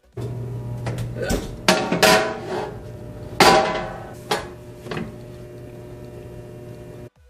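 Metal baking sheet clanking on gas-stove grates: a series of sharp, ringing metallic knocks, the loudest about three and a half seconds in, over a steady hum.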